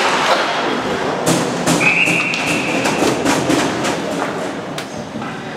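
Ice hockey referee's whistle blown once for about a second, about two seconds in, signalling a stoppage of play. Around it come sharp clacks and knocks of sticks, skates and puck on the ice.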